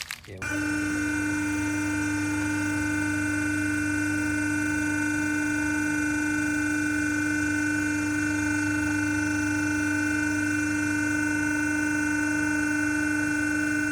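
A steady machine hum made of several fixed tones, starting about half a second in and holding at an even pitch and level.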